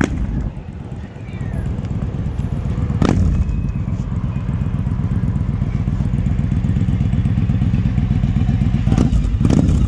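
2008 Yamaha motorcycle engine running through handmade stainless pipes as the bike rides off and circles back. It fades briefly about a second in, then grows louder and steadier. A few sharp knocks cut through, one about three seconds in and two near the end.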